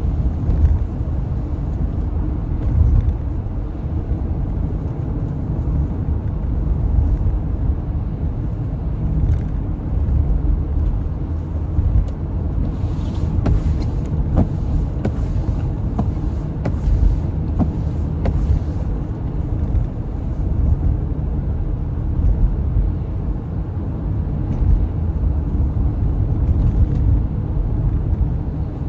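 Steady low road rumble of a car being driven, heard from inside the cabin, with a few faint clicks about halfway through.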